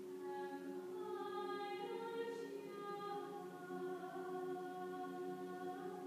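Mixed chamber choir singing softly on long-held chords, with a solo female voice singing a slow melody above them.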